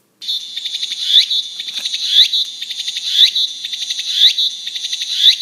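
Recorded song of a tsukutsukuboshi cicada (Meimuna opalifera) played from a children's sound-guide toy. A fast buzzing trill starts just after the beginning, with a swooping phrase that comes back about once a second.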